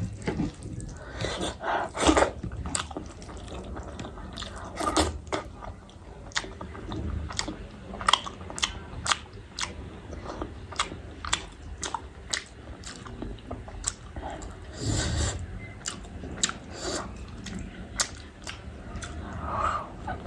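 A person eating close to the microphone: chewing and biting with many short, wet mouth clicks and smacks.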